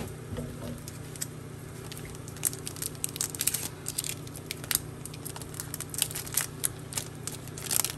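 Foil wrapper of a Topps Chrome Cosmic trading-card pack crinkling as it is torn open and the cards are slid out. The crackling starts about two seconds in and comes in quick, sharp bursts, over a steady low room hum.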